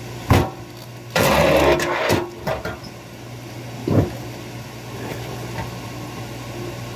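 Electric kinetic log splitter running with a steady motor hum. About a second in, a loud crack and crunch lasting about a second as the ram drives through a red oak round and splits off a thin slab. A knock comes just after the start and another around four seconds as the wood is set on the beam.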